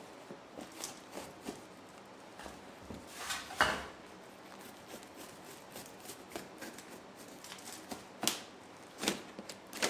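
Knife scraping and prying at a rotted, glued-on wooden strip on an old snowmobile seat pan: scattered short scrapes and clicks, with a louder scrape about three and a half seconds in and a couple of sharp clicks near the end.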